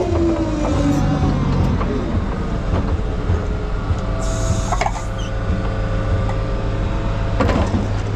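Heavy hydraulic machine running steadily, its engine hum and hydraulic whine sliding slightly down in pitch in the first second. There are metallic clatters about halfway through and again near the end.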